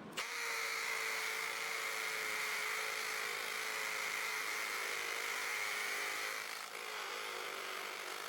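Cordless brushless hammer drill running steadily under load, boring a hole with a 1-inch Bosch bit: a steady motor whine that changes slightly about two-thirds of the way through.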